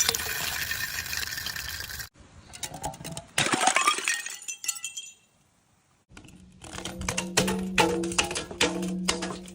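Glass bottles and shards clinking, rattling and breaking, in short separate bursts of many sharp clicks and impacts, with about a second of silence about five seconds in. In the last part, a steady ringing tone runs under the clinks.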